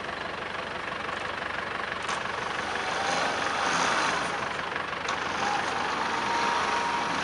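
Tow truck's engine running steadily while its winch cable draws a small vehicle up onto the tilted bed; a faint whine joins about halfway through.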